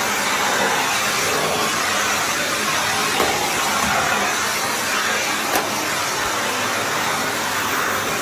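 Vacuum cleaner running steadily, its floor nozzle pushed across marble floor tiles with a constant hiss of suction. A single small click a little past halfway.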